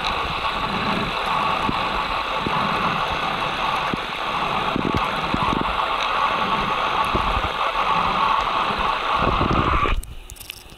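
Underwater noise picked up by a submerged camera: a steady crackling hiss with low swells about once a second. It cuts off abruptly near the end as the camera breaks the surface, leaving a much quieter sound in open air.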